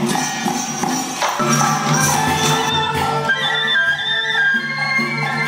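Traditional Vietnamese ensemble music with percussion strikes and sustained melodic instruments. The percussion is busier in the first half, and a higher melodic line carries the second half.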